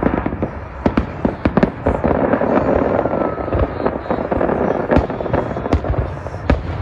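Fireworks salute: a quick, irregular series of sharp bangs from bursting shells, with a denser rush of crackling noise about two to four seconds in.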